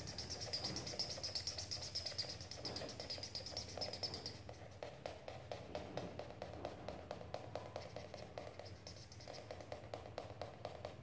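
Black felt-tip marker scribbling on paper in rapid back-and-forth strokes as it colours in a solid area. There is a high squeak for the first four seconds or so, then a softer scratching.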